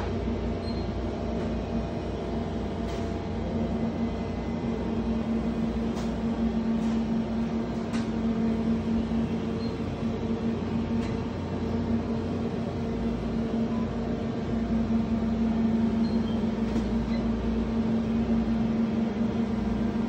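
Steady machine hum of an open refrigerated display case: one strong low tone with fainter higher tones over a constant whir, and a few faint clicks.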